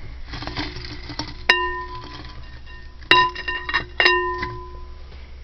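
Jewelry clinking against the big glass jar, which rings out with a clear bell-like tone three times, the middle strike with a quick run of small clinks.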